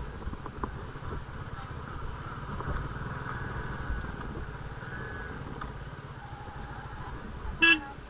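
Motorcycle engine running while riding. A short horn toot sounds near the end.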